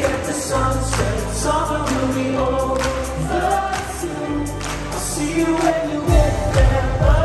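Live pop band playing, with singing over sustained bass notes. The drums come in with a steady beat about six seconds in.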